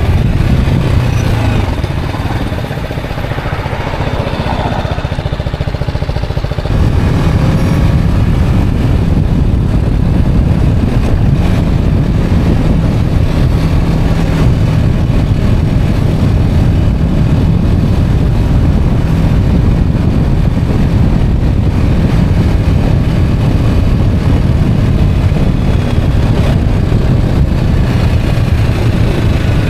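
Motorcycle ridden through town, heard from the rider's position: a steady engine rumble mixed with wind noise on the microphone. It is quieter for a few seconds near the start, then louder again from about seven seconds in as the bike picks up speed.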